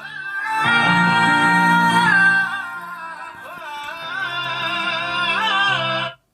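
A song with singing played through a homemade loudspeaker on test. It cuts off suddenly near the end.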